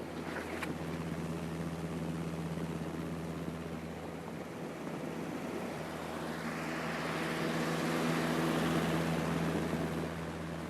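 Film-burn sound effect: a steady low hum under hiss, with a few crackles about half a second in. A rushing hiss swells from about six seconds in and fades near the end.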